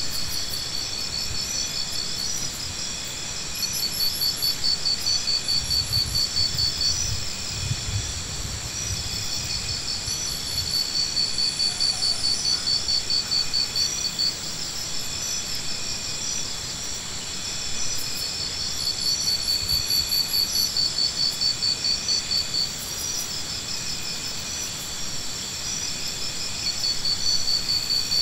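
Insects chirping in a steady high chorus, with fast pulsing trills that swell for a few seconds at a time and fade again.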